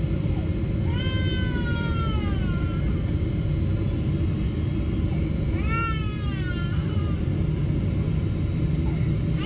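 Steady roar of an airliner cabin on final approach, engines and airflow running evenly. Two high wailing cries that rise and then fall in pitch cut through it, about a second in and again about six seconds in.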